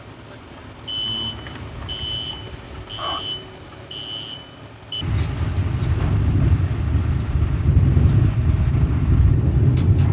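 A vehicle's reversing alarm beeping about once a second, five beeps. About five seconds in it is cut off by a loud, steady, low engine and vehicle rumble that runs on.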